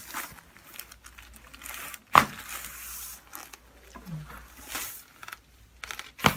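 Rustling and crinkling as a patient shifts on a treatment table, with a single sharp crack about two seconds in and another just before the end: the pop of a chiropractic adjustment releasing a joint that the chiropractor calls locked up.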